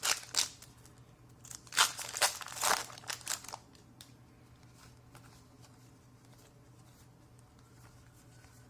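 A Magic: The Gathering Battle for Zendikar foil booster pack wrapper crinkling and tearing open in quick crackly bursts for about three and a half seconds, then only faint light ticks.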